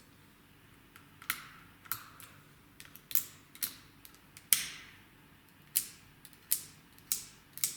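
Metal parts of a domestic knitting machine clicking as they are moved by hand to check that they work: about ten sharp, irregular clicks.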